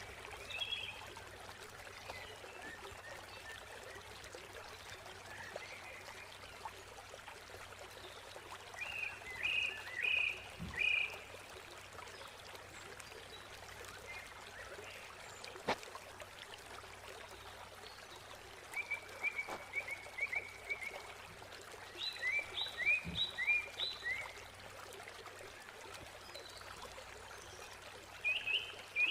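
Small birds chirping in clusters of short, high notes several times over a steady background hiss.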